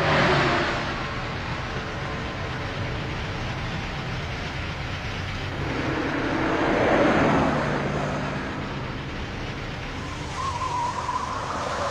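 City traffic noise with vehicles passing by, swelling loudest just after the start and again about seven seconds in. A faint wavering high tone joins near the end.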